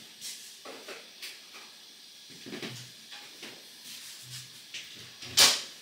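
Electric Bialetti aluminium moka pot heating on its base, giving its first cooking sounds before the brew starts to bubble up: scattered soft pops and crackles, with a sharper hiss about five seconds in.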